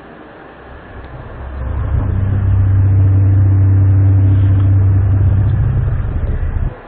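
A loud, low, steady droning hum swells in about a second in and holds at one pitch, with a brief drop-out near the end.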